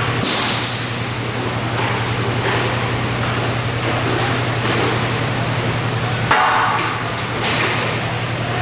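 Inline roller hockey being played in an indoor rink: scattered short clacks and scrapes from play, with one sharp bang about six seconds in, over a steady low hum.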